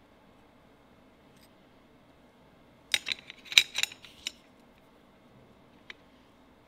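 Table knife and fork clicking and scraping against a glass plate while cutting a scone: a quick run of sharp clicks about three seconds in, then a single click near the end.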